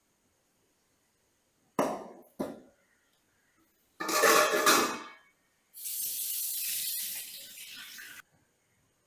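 Kitchen dishware handled: two sharp clinks about half a second apart, then a second-long clatter, then a steady hiss lasting about two and a half seconds that cuts off sharply.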